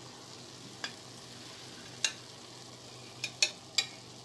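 Metal spatula clicking and scraping against a nonstick frying pan and a ceramic plate while spinach and egg are lifted onto the plate: sharp taps around one and two seconds in, then a quick run of three near the end. A faint sizzle from the still-hot pan runs underneath.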